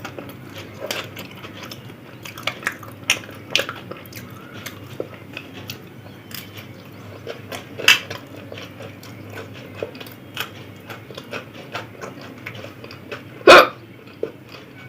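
Close-up eating sounds: chewing on spicy aloo kabli with frequent small clicks and taps of utensils on the plate. There is a louder sharp sound about eight seconds in and a loudest, brief one near the end.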